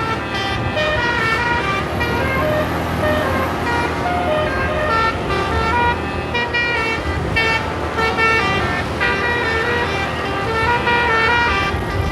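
Indonesian bus 'telolet' horn, a basuri-type 36-note musical air horn, playing a melody of held notes that step from pitch to pitch, over a steady low rumble.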